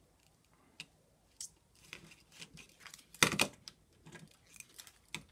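Thin insulated wire being unwound from a clear plastic baseplate compass by hand: scattered light rustles and clicks, with one louder knock a little over three seconds in.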